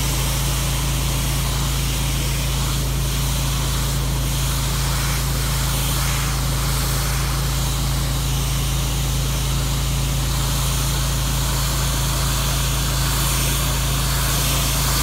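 31 HP hot-water pressure washer running steadily: the engine hums at a constant pitch while the 3500 PSI spray hisses against asphalt.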